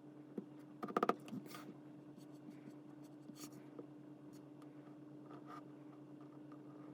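A quick cluster of sharp clicks about a second in, then faint scattered ticks and light scratching, as of small parts being handled, over a steady low hum.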